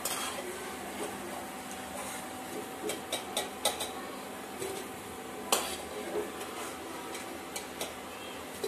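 Dal bhalle frying in hot oil in a steel kadhai, a steady sizzle, with a few sharp clinks of a metal slotted spoon against the pan as the browned fritters are lifted out.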